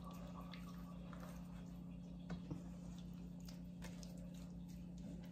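Faint soft squishing and small ticks of hands working rolled biscuit dough, with two light knocks a little over two seconds in, over a steady low hum.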